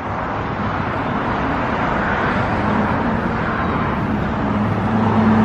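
A motor running with a steady low hum that comes in about halfway and grows a little louder, over a steady wash of outdoor noise.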